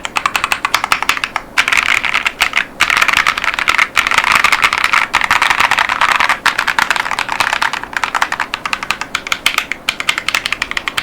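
Fast typing on an Epomaker Tide 75 mechanical keyboard with KTT Baby Blue tactile switches and PBT keycaps: a rapid, dense stream of keystrokes, broken by a few short pauses.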